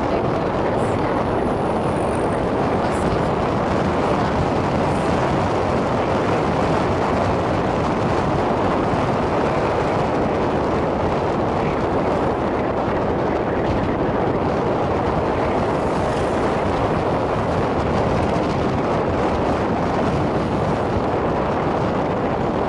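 Steady rush of wind over the microphone mixed with motorbike engine and road noise, at an even speed with no revving.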